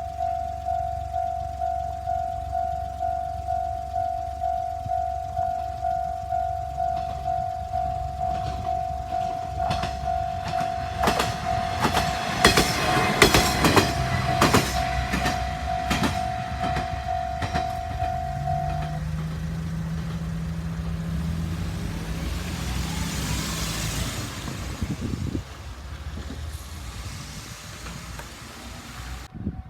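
Japanese level-crossing warning bell ringing a steady, evenly repeated ding, about one and a half strikes a second. A diesel railcar passes through with its wheels clacking over the rail joints. The bell stops about two-thirds of the way through, and the railcar's engine hum carries on and fades as it moves away.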